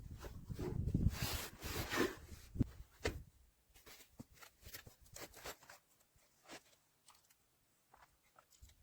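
Rustling and handling noise, with scattered light clicks and knocks. It is busy for the first three seconds, then thins to occasional small clicks.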